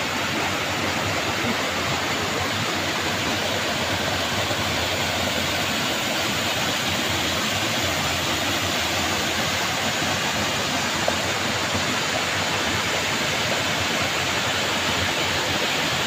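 Water rushing steadily over the rocky cascades and tiers of a forest stream and waterfall.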